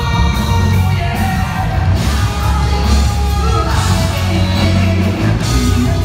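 Live rock band playing loud, with male singing over electric guitar and a heavy, driving bass.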